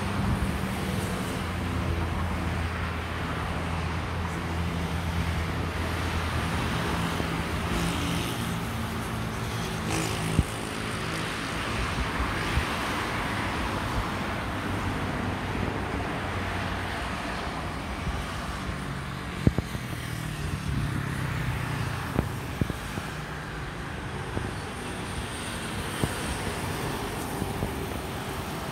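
Steady engine rumble and hiss heard from a distance, with a low steady engine hum over the first several seconds and a few sharp clicks later on.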